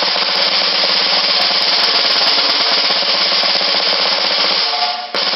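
Very fast single stroke roll on a snare drum, the strokes merging into one continuous rattle of the drum and its snares. It breaks off briefly near the end and then starts again.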